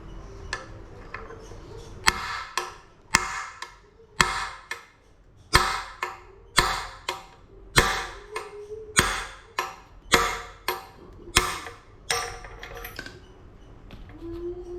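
Hammer blows on a downhill bike's frame linkage bearing, about a dozen sharp strikes roughly one a second, each with a short metallic ring: a bearing being driven out of or into its seat.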